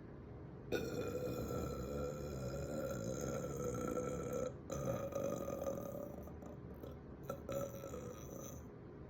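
A person belching the gas from chugged soda. One long, drawn-out burp starts suddenly and lasts about four seconds, then a second shorter burp follows and a few weaker ones trail off.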